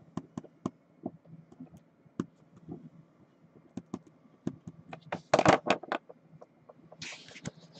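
Scattered clicks and taps of typing on a computer keyboard, irregular, with a louder clatter of clicks and scrapes about five seconds in and a short rustle near the end.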